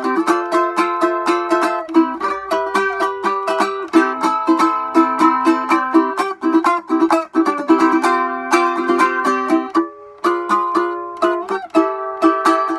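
Instrumental music on plucked strings: fast, rapidly repeated picked notes in a busy, rhythmic pattern, with a brief pause about ten seconds in.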